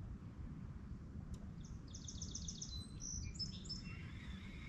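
A small songbird singing from the shoreline woods: starting about two seconds in, a quick run of high, evenly spaced notes, then a few more varied notes, over a low steady background rumble.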